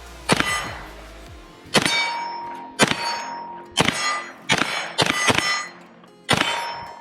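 A string of about eight gunshots at irregular spacing, each answered by the ring of a hit steel plate target. The plates ring at different pitches, and the ring fades over about a second.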